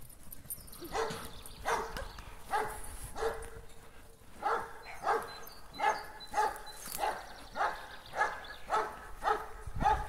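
A dog barking over and over at an even pace, about three barks every two seconds, starting about a second in.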